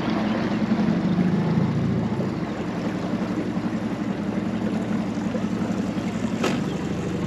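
Outboard motor of an inflatable boat running under way, with water and wind noise over the hull. The engine note eases off a little about two seconds in as the boat slows, and there is one short click near the end.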